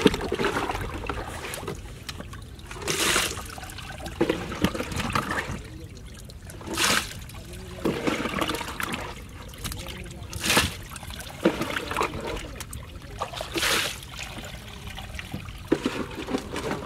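Water splashing and trickling in and around a wooden boat whose hold is filled with fish and water as the catch is handled by hand, with a short splash every few seconds over a steady trickle.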